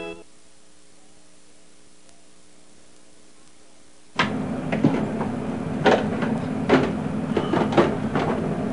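Faint steady background hiss for about four seconds, then a sudden jump to a louder room hum with a string of sharp clicks and knocks, roughly one a second, as items are handled on a bathroom wall cabinet's shelves.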